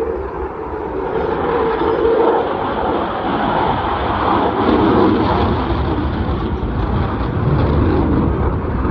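Jet noise from a Eurofighter Typhoon's twin EJ200 turbofans: a loud, continuous rushing rumble. It grows heavier in the low end after about two seconds and then holds.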